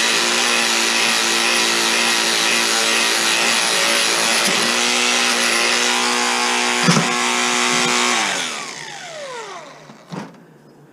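Electric rotary power tool, most likely a grinder, running steadily at full speed with a sharp knock about seven seconds in, then switched off and spinning down, its whine falling in pitch as it slows.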